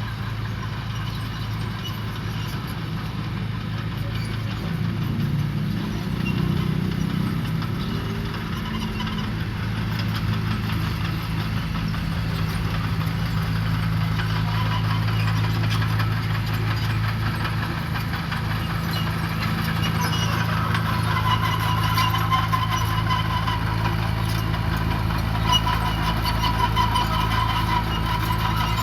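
Diesel engine of heavy earthmoving machinery running steadily, with a higher tone near the middle of the range that grows louder in the second half.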